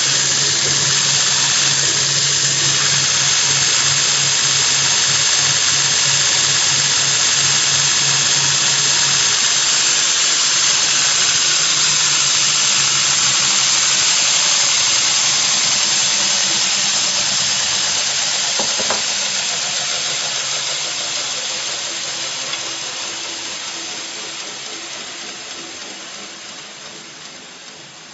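Surface grinder attachment running, its grinding wheel giving a loud, steady high-pitched hiss and squeal over a low motor hum. The hum stops about nine seconds in, and the whole sound then gradually dies away over the last dozen seconds.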